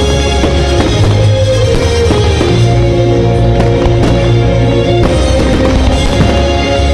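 Loud music with held notes over a strong bass line, with several sharp firework bangs and crackles cutting through it.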